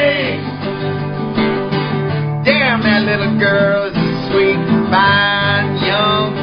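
Acoustic guitar strummed and picked, with a man singing over it; the voice swoops up and down between notes.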